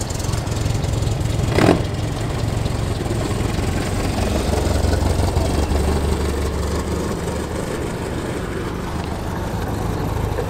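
Classic sports car engines running at low revs as the cars drive slowly in, the engine sound swelling a little around the middle. A brief sharp knock a little under two seconds in.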